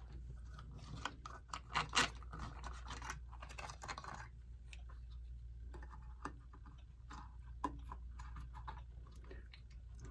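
Handling noises as a bottle of wood finish is readied and put to a cloth: scattered clicks, taps and scratchy rustles, busiest in the first few seconds and again later, over a low steady hum.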